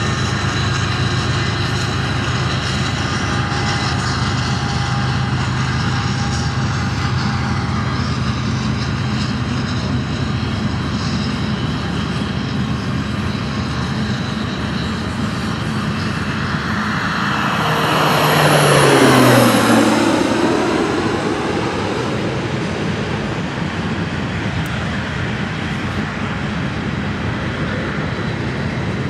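Crop-duster airplane's engine and propeller droning, then making a low, fast pass: it grows louder and its pitch drops steeply as it goes by, a little past halfway.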